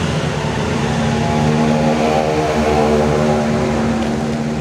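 A steady engine-like drone with a pitched hum that wavers slightly in pitch.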